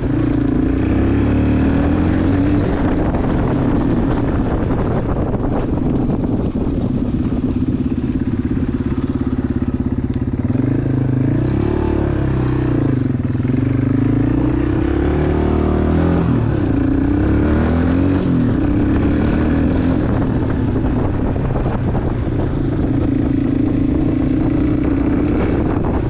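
Four-stroke single-cylinder dirt bike engine running under way at part throttle. Its note dips and climbs again around the middle as the throttle is rolled off and back on.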